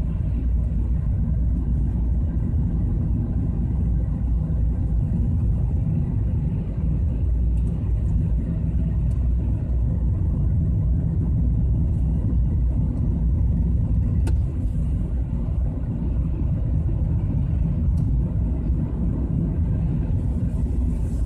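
Car driving at a steady speed through a road tunnel, heard from inside the cabin: a steady low rumble of engine and tyres, with a few faint ticks.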